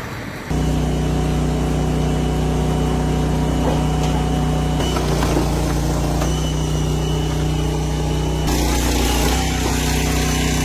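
An engine runs steadily at a constant speed, cutting in abruptly about half a second in.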